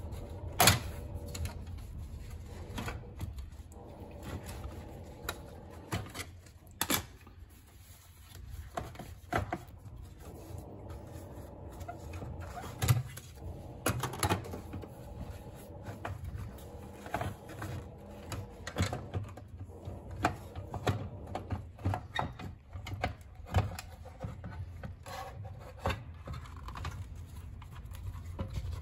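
Irregular clicks, taps and rattles of the sheet-metal chassis and plastic parts of an HP dc7600 ultra-slim desktop being handled and pulled apart by gloved hands, with a low steady hum underneath.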